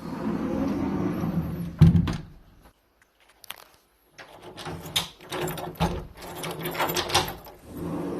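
Sliding patio door rolling along its track, ending in one loud thud about two seconds in. After a short lull, a run of clicks and rattles as the door and its Miwa NDS Patio Guard lock are worked.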